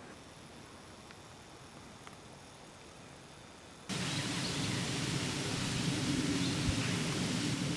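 Faint outdoor ambience, then about four seconds in an abrupt change to the steady rushing of a waterfall.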